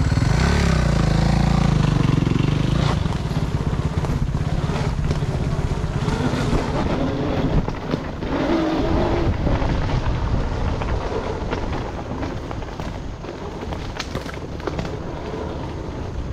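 Dirt bike engine revving up as the bike pulls away, its pitch rising and falling in the first few seconds, then running on steadily at riding speed.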